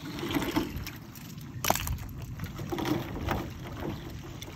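Water sloshing and chunks of ice knocking together as broken ice is hauled out of a stock tank by hand, with one sharp knock about one and a half seconds in.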